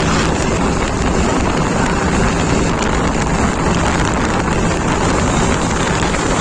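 Wind rushing over the microphone of a moving motorcycle, with the Bajaj Pulsar NS's engine running steadily underneath.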